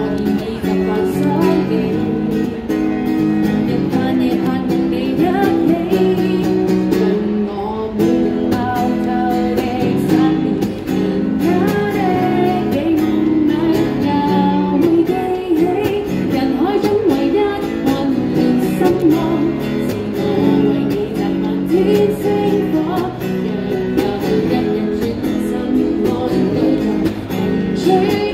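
A woman singing into a microphone while strumming an acoustic guitar, played through a small busking amplifier.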